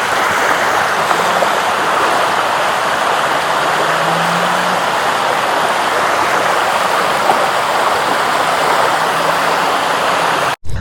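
Shallow creek water running over rocks, a steady rushing that cuts off suddenly near the end.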